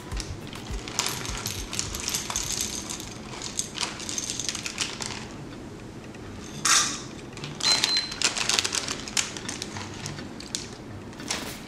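Dried pimento (allspice) berries clicking and rattling against a plastic measuring spoon and inside their plastic bag as they are scooped out, with the bag crinkling in a few louder rustles midway.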